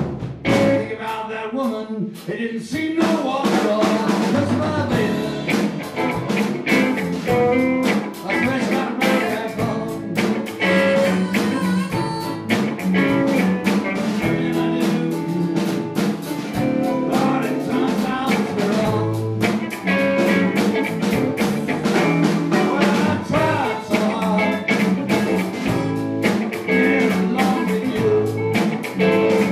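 Blues band playing an instrumental passage: harmonica over electric bass, electric guitar, keyboard and a drum kit keeping a steady beat.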